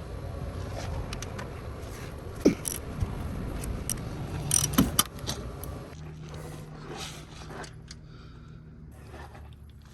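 Metal tools clinking and scraping as they are handled: a few sharp clanks, the loudest about two and a half seconds in and again near five seconds, over a low rumble.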